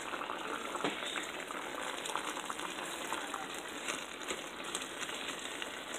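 Hamburger meat frying as it browns in a pan on the stove: a steady sizzle with many small crackles.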